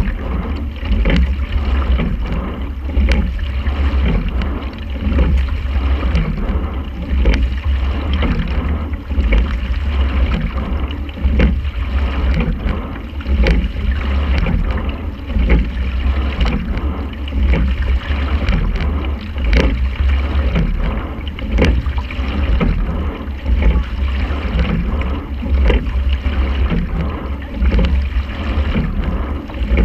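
Quadruple racing scull being rowed at race pace: the oarlocks knock and the blades catch and drive in a regular rhythm about every two seconds, over water rushing along the hull and a steady low rumble.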